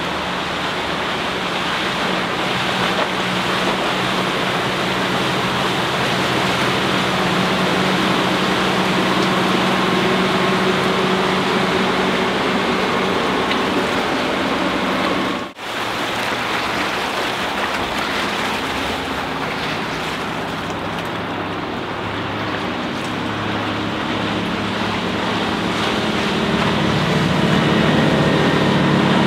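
The MerCruiser 5.0 MPI V8 sterndrive of a Larson Cabrio 240 sports cruiser running at speed, heard from the shore as a steady engine drone under a rush of wake and wind noise. The sound drops out for an instant about halfway through, and the engine note grows louder near the end as the boat comes closer.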